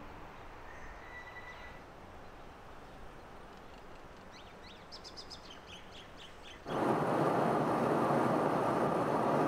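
Faint outdoor air with a few brief bird chirps, then an abrupt cut, about two-thirds of the way through, to loud, steady aircraft cabin noise in flight.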